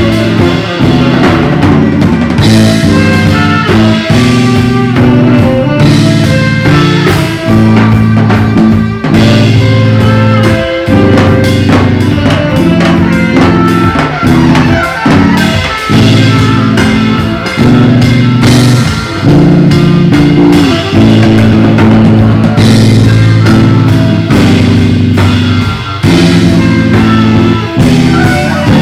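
Loud live band music: a saxophone section over a drum kit and electric bass, with a heavy, held low line and steady drumming.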